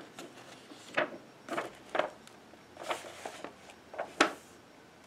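Paper being handled as a magazine's pages are turned: a string of short, sharp rustles and taps, about eight in all, the loudest a little past four seconds in.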